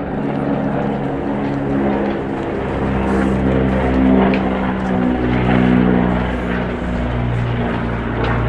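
Propeller engines of a low-flying water-scooping firefighting aircraft droning overhead, the pitch slowly shifting as it passes.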